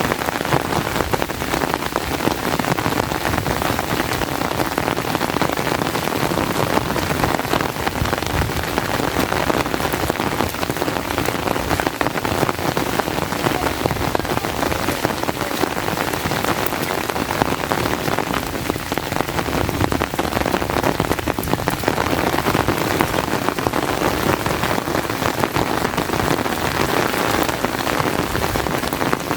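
Steady rain falling, with a dense, even patter of close raindrop hits.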